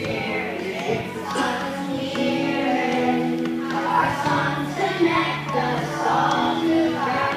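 Choir singing a slow song with held notes over instrumental accompaniment.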